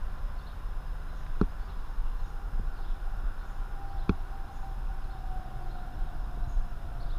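Small outboard motor of a Craig Cat catamaran running far off on the water, a thin steady whine that drifts slightly lower over the last few seconds, over a low rumble. Two sharp clicks, about a second and a half and four seconds in.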